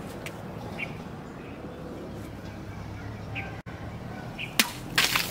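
Hand-forged knife, its blade made from a tractor disc, swung into a hanging plastic bottle of water: a sharp hit about four and a half seconds in, then a louder cluster of hits and splashing near the end. Short bird chirps repeat in the background before it.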